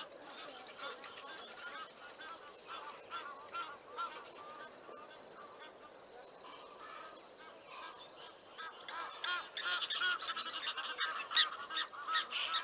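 Egyptian geese honking: many short, rapid, repeated calls, which become much louder and more frequent about nine seconds in.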